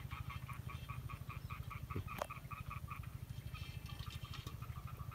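Frogs calling from the pond in a steady, rapid pulsing chorus, with a brief squeak about two seconds in.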